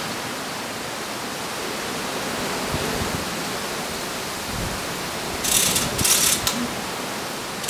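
Steady hiss, with two short bursts of rattling from the overhead lifting gear and straps holding the Corvette body, a little after five and six seconds in.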